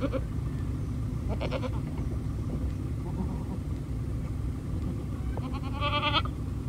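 Goats bleating: a short wavering bleat at the start, another about a second and a half in, and a longer, louder one near the end, over a steady low rumble.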